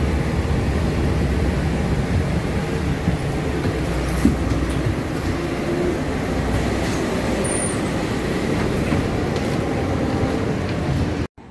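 City bus running, heard from on board: a steady, loud engine and road rumble that cuts off suddenly near the end.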